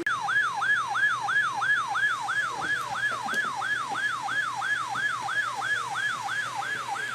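An electronic siren-type warning tone that starts abruptly and repeats a quick downward pitch sweep about three times a second.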